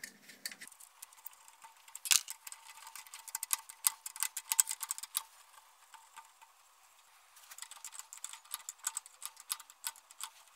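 Rapid light metallic clicking of a spanner and nut being worked off the threaded stud of a generator alternator's rubber anti-vibration mount, in two runs of a few seconds each. The nuts are already loose, so they turn freely.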